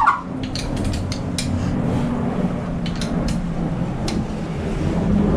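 GM 5.3 V8 being turned over by hand with a long wrench on the crank during pre-oiling: scattered clicks and light knocks from the wrench and valvetrain, over a steady low hum.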